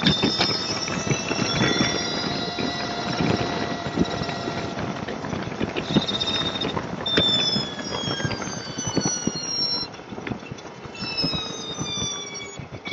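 Motorcycle riding between lanes of slow freeway traffic: a high-pitched whine that falls slowly in pitch several times, over road noise and a fast, constant rattle of clicks.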